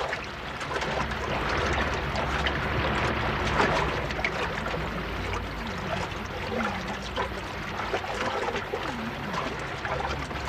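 Cartoon water sound effects: steady underwater bubbling.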